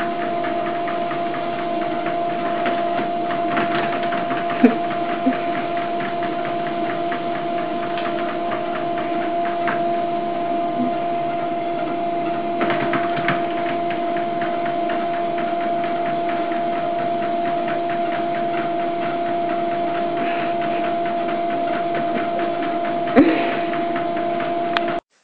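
Steady mechanical whirring hum at one constant pitch, like a small motor running, with a few faint knocks over it, the sharpest about two seconds before it cuts off.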